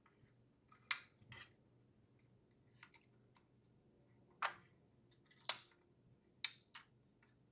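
A handful of scattered light clicks and taps from hands handling small parts: a thermal pad being fitted onto an NVMe M.2 SSD inside an aluminium drive dock. The sharpest click comes a little past halfway.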